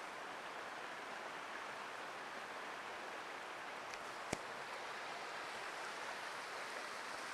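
Steady rushing outdoor background noise with one sharp click about four seconds in.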